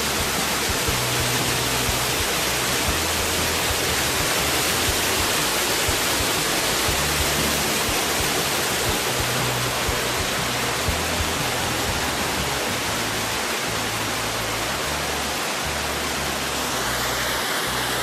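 Loud, steady rush of a large waterfall pouring into a rocky pool.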